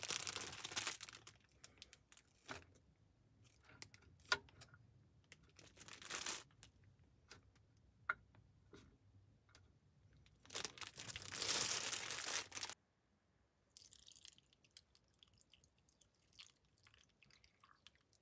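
Bursts of rustling and crinkling, the longest and loudest lasting about two seconds near the middle, with scattered light clicks and knocks as small items are handled.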